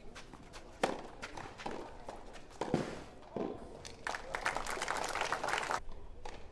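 Tennis ball struck by rackets a few times in a rally, sharp single hits spread over the first few seconds, then about two seconds of crowd applause that cuts off suddenly.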